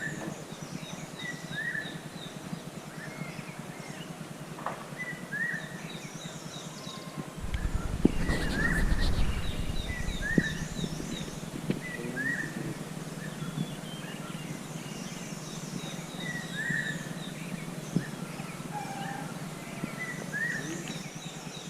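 A small bird repeating a short rising call note every second or two, with fainter high chips from other birds. A low rumble comes in about seven seconds in and lasts a couple of seconds.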